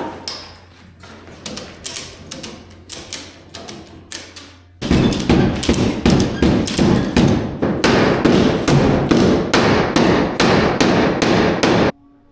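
Hammer blows driving a bale-feeder coupler into line so its bolt hole matches: a few light, spaced taps, then about five seconds in a louder, steady run of about three blows a second that stops suddenly near the end.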